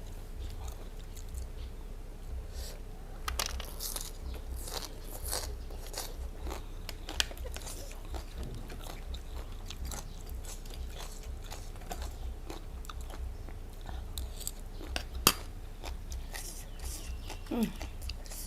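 Close-miked eating: repeated biting and crunching of crisp raw vegetables, with steady chewing, and one sharper loud crunch or click about fifteen seconds in.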